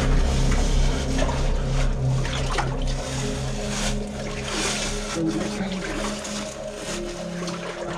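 Footsteps splashing and sloshing through shallow water, irregular and uneven, over a low background music drone whose notes change every few seconds.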